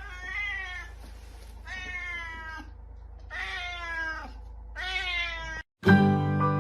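A cat meowing over and over: drawn-out meows about a second long with short pauses between, each falling in pitch.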